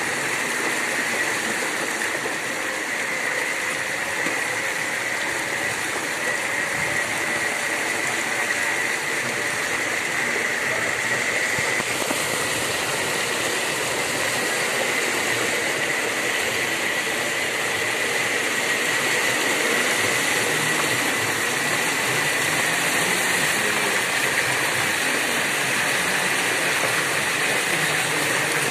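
A van driving through floodwater: a steady rush of water around the wheels, with a motor running underneath and a constant high whine.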